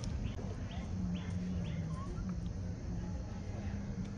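A bird chirping repeatedly, short falling calls about two a second, that stop about halfway through, over a low steady hum with brief breaks.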